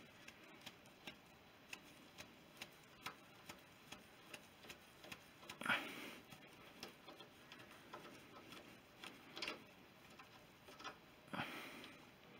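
Faint, even ticking, a little over two ticks a second, with a few soft rustles and scrapes of gloved fingers unscrewing the oil-feed pipe union on a BSA B31 engine: about halfway, about three-quarters through and near the end.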